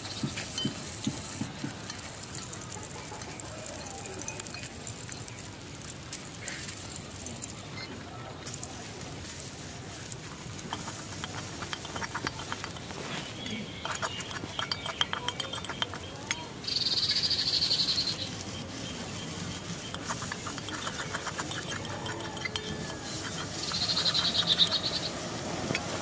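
Fish and then sliced onions frying in hot oil in an aluminium karai: steady sizzling with crackling spatters, and a metal spatula stirring against the pan. Two brief, louder high-pitched bursts come about two-thirds of the way through and near the end.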